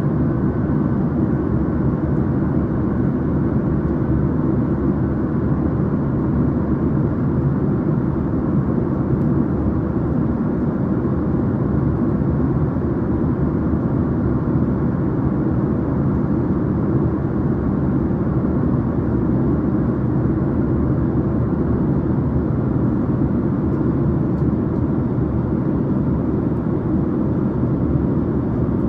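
Airplane noise: a steady low rumble that holds at one level without rising or falling.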